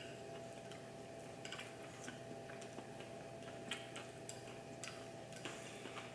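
Faint, irregular light clicks of chopsticks against a small ceramic bowl and a sushi platter, over a steady low hum.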